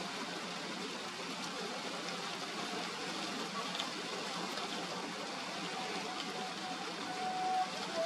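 Steady hiss of heavy rain, even and unbroken, with a faint thin whine rising out of it near the end.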